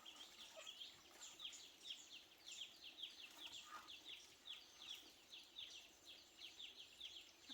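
Faint bird chirping: a steady run of short, high, falling chirps, about four or five a second.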